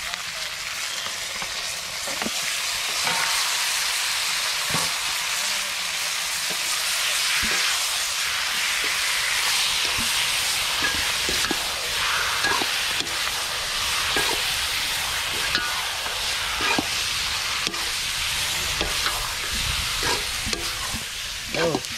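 Chicken pieces frying in hot oil and onion, ginger and garlic masala in a pot over a wood fire, with a steady sizzle. A ladle stirs through it, knocking against the pot now and then.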